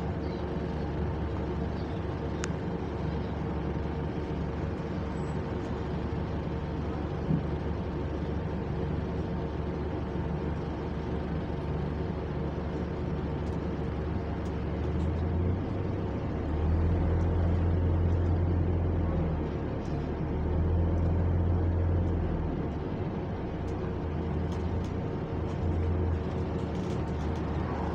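Double-decker bus in motion, heard from the upper deck: the electric engine cooling fan holds a steady whine on one pitch, not following engine speed, while the engine's low rumble grows louder twice past the middle as the bus pulls.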